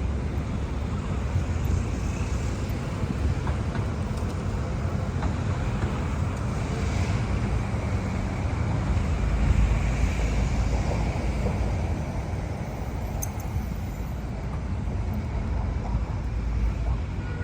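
Steady city street traffic: a continuous low rumble of vehicles with several passing by. The loudest pass comes about halfway through.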